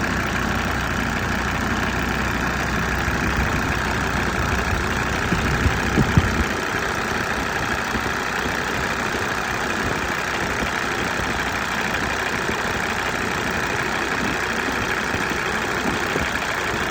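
Mercedes OM605 five-cylinder diesel idling steadily at warm-up revs, with a couple of brief thumps about six seconds in. The low rumble drops away after the thumps.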